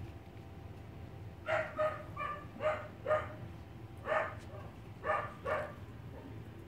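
Small puppies yipping: about eight short, high-pitched yaps in quick succession, starting about a second and a half in.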